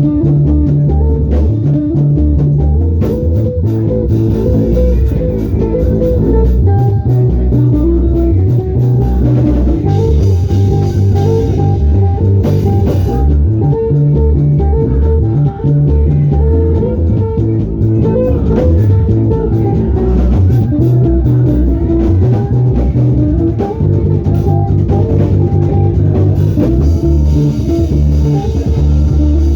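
Instrumental band music: bass guitar, guitar and drum kit playing a steady groove without singing.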